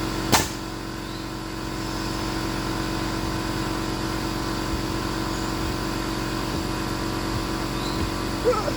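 A motor running steadily, with a sharp knock about a third of a second in.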